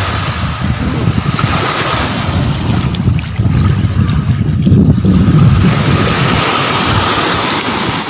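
Small sea waves washing onto a sandy beach, heard through heavy wind buffeting on a phone microphone.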